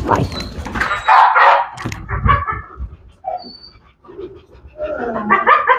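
Pit bulls barking in repeated bursts, loudest about a second in and again near the end.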